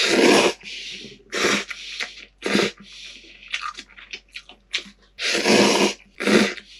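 A man slurping instant ramen noodles from a paper cup with chopsticks: a run of loud slurps, the biggest right at the start and about two-thirds of the way through, with shorter quieter slurps between.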